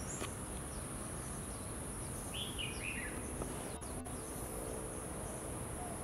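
Steady high-pitched insect chorus, with a short run of about four bird notes stepping down in pitch about two and a half seconds in.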